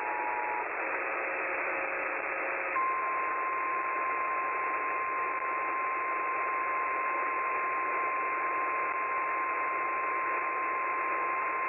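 Weather-radio alert audio over a steady bed of radio static: a two-tone chord cuts off just after the start, then from about three seconds in a single steady alert tone sounds, the NOAA Weather Radio 1050 Hz warning alarm tone that comes before a warning message.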